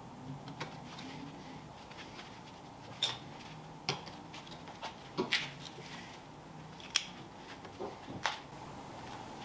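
Hand tools and metal parts clicking and clinking at a car's rear drum brake hub: a handful of short, sharp metallic clicks at uneven intervals over a faint steady hum.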